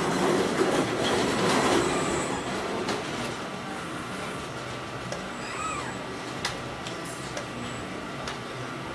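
Hydraulic CNC sheet-metal folding machine moving its beams: a rumbling, rattling mechanical run for the first two and a half seconds or so, then a steadier hum with scattered sharp clicks and short squeaks.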